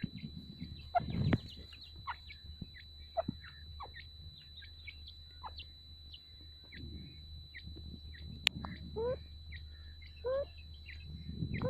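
Francolins calling: many short, sharp chirping calls, with two rising calls about nine and ten seconds in, a single sharp click just before them, and a steady high-pitched whine underneath.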